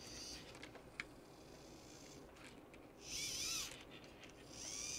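Plastic and rubber parts of an RC servo and its mount squeaking as they are worked by hand, with the servo wire being pulled through: a light click about a second in, then two short squeaky rubs with a wavering pitch, the first about three seconds in, the second near the end.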